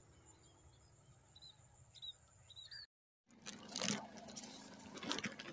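Faint short bird chirps, a few of them, over a quiet field. After a sudden cut a little under three seconds in, louder rustling and handling noise as the phone moves among the rice plants.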